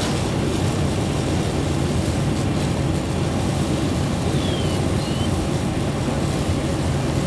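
Steady low roar of a large fire of burning vehicles being hosed down, the blaze and the water streams blending into one even rumble with no single event standing out.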